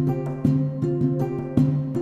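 Background music: gently plucked guitar notes in a steady rhythm, a new note about every half second.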